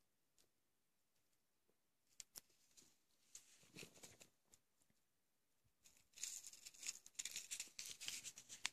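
Packaging crinkling and rustling as it is handled, with a few light clicks, scattered at first and then dense and louder through the second half.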